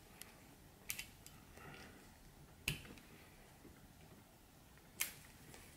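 Faint clicks and creaks of a mini Phillips screwdriver turning a small screw into the metal headband strap clip of Audeze LCD headphones. A few sharp clicks stand out, the loudest two a little under halfway and near the end.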